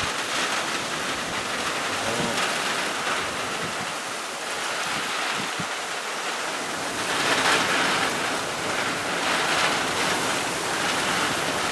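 Heavy slanting rain falling in a steady hiss, swelling louder for a few seconds about seven seconds in.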